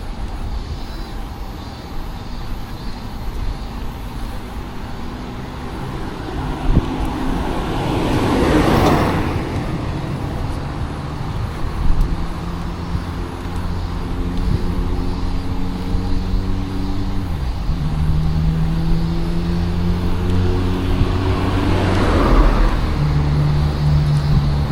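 Road traffic: a car passes close by about a third of the way in and another near the end, with the hum of running engines in between.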